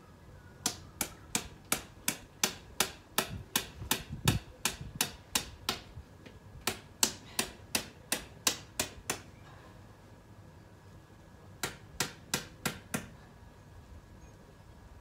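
Steady hammering, about three sharp blows a second for some eight seconds, then after a pause of two or three seconds a short run of five more blows.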